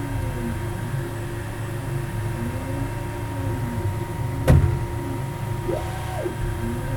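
UP Box 3D printer's stepper motors whining as the print head moves back and forth, the pitch rising and falling with each move over a steady hum, on a printer in turbo mode whose Y axis is losing steps. One sharp knock sounds about four and a half seconds in.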